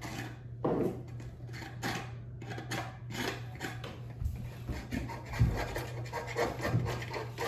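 Repeated scratching and scraping at a wall as a nail is worked loose by hand, with a few heavier knocks a little past halfway, over a steady low hum.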